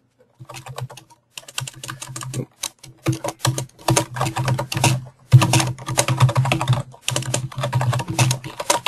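Computer keyboard typing: quick runs of key clicks in several bursts with brief pauses between them, as a name is typed into a text field.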